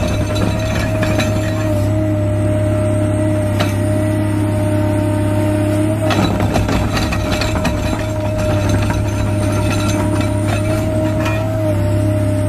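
Caterpillar excavator's diesel engine running under load with a steady low hum and a whine, while its single-shank ripper tooth tears through rock with scattered clinks and knocks.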